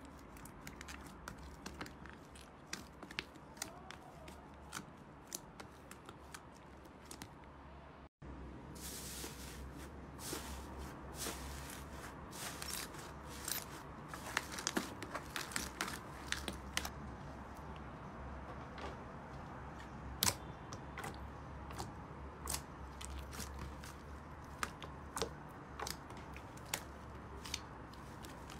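Slime being kneaded, squeezed and pressed by hand in a plastic tub, with many small, sharp, irregular pops and crackles from trapped air. The sound cuts out briefly about eight seconds in, and the popping is busier and louder afterwards.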